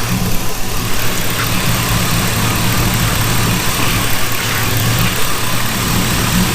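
LS V8 engine in a box Chevy Caprice idling steadily. The engine has a misfire that the owner suspects comes from a vacuum leak.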